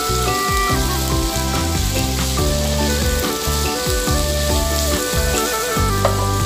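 Diced ham and vegetables sizzling in a frying pan as a spatula stirs them, under background music with a prominent bass line.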